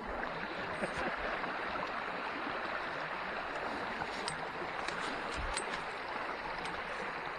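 Small creek running: a steady, even rush of shallow water, with a few faint light clicks.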